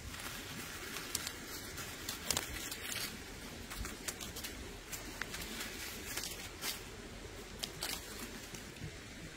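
Irregular crinkling and crackling of something being handled, with scattered sharp clicks over a low steady hiss.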